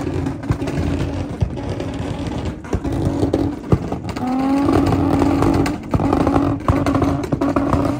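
Car engines running with a steady exhaust drone; about four seconds in, one engine revs up and holds high revs for nearly two seconds before dropping back.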